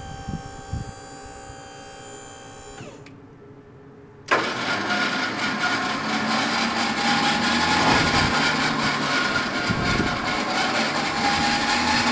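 Switch-N-Go hoist's hydraulic system working: a steady whine winds down and stops about three seconds in. About a second later the pump cuts in abruptly and runs loud and strained, its whine slowly rising, as the hoist tilts the container body up.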